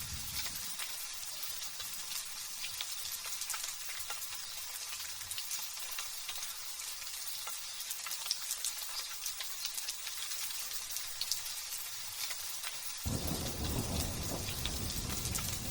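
Light rain falling steadily: a high hiss full of fine crackling drops. A low thunder rumble fades out in the first second, and another starts abruptly near the end.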